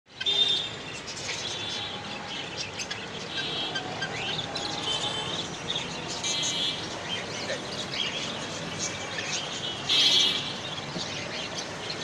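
Helmeted guineafowl calling: harsh, rasping calls repeated every second or two, the loudest about ten seconds in, with shorter chirps between them.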